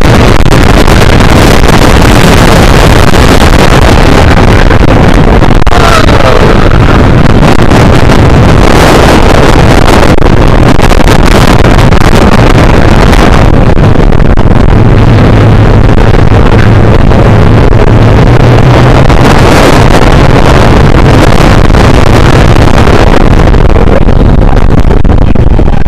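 Wind blasting across the microphone and the steel roller coaster train's wheels rumbling along the track at speed, very loud and steady. A heavier low hum comes in for a few seconds past the middle.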